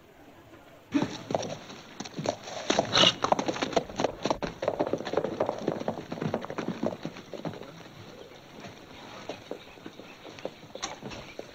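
Hoofbeats of several horses on a dirt street. They start about a second in, are densest over the next few seconds, and thin out toward the end.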